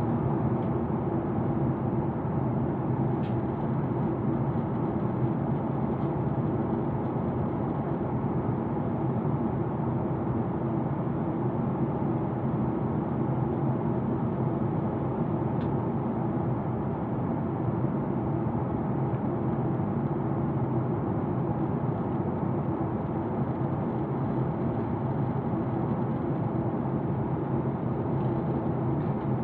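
Steady drone of an airliner's cabin in cruise flight: engine and airflow noise heard from inside the cabin, with a few faint ticks.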